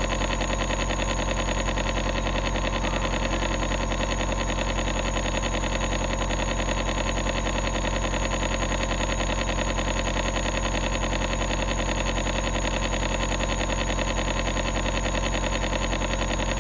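Compressor nebulizer running with a steady, loud mechanical hum as it nebulizes medicine.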